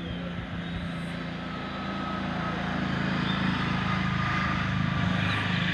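A vehicle engine running steadily, growing louder from about two seconds in.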